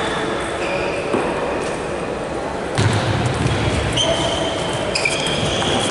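Table tennis ball clicking off paddles and the table during a fast doubles rally, over the murmur of voices in a large hall.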